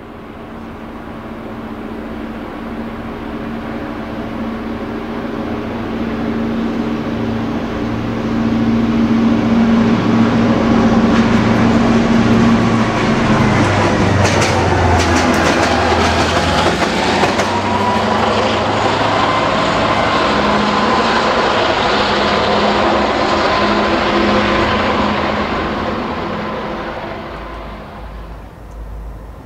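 Diesel locomotive passing: the engine drone builds up, drops in pitch as it goes by about halfway through, with a run of wheel clicks over the rail joints, then the rumble fades away near the end.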